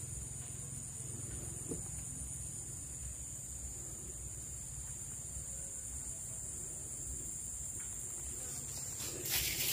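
Steady high-pitched insect chorus over a low rumble, with a few brief louder rustling sounds near the end.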